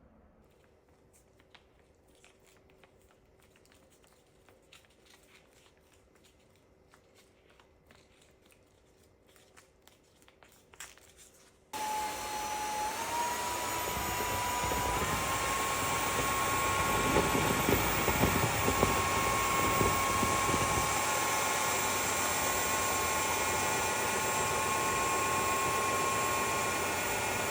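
Near silence with a few faint clicks, then about twelve seconds in a NORDN BLAST cordless vacuum cleaner's motor switches on and runs steadily, its high whine stepping up in pitch over the next few seconds before holding level.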